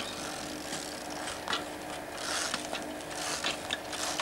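A small bicycle ridden slowly over rocks: irregular ratcheting clicks from its freewheel and chain, with short scrapes of tyres on stone, the longest about two and a half seconds in.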